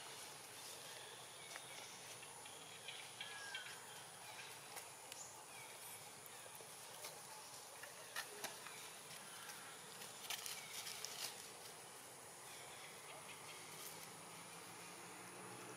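Faint outdoor ambience: a steady high-pitched insect drone, with scattered small clicks and ticks.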